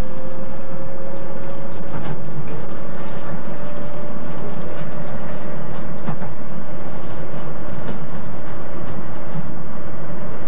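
Docklands Light Railway train running, heard from the front seat inside the car: a steady rumble of wheels on track with a thin motor whine that rises slightly over the first couple of seconds and then holds. A few sharp clicks sound about two, three and six seconds in as the wheels pass over rail joints.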